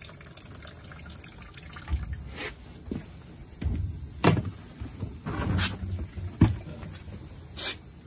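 Liquid trickling from the tap of a stainless-steel wax melter into a plastic bucket. From about two seconds in, a series of separate knocks and thumps follows as the plastic bucket is handled, two of them louder than the rest.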